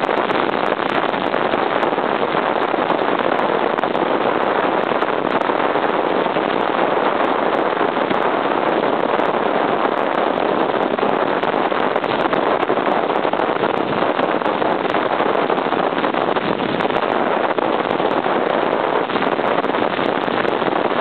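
Steady rush of wind on the microphone, with road and engine noise, from a 1978 Honda CB750 motorcycle riding at speed, with small crackles throughout.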